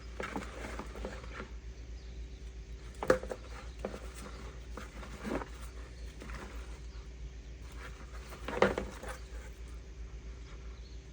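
Scattered light taps and knocks from a seasoning container being handled and shaken as paprika is sprinkled over raw fish, with two sharper taps, one about three seconds in and one later on, over a faint steady hum.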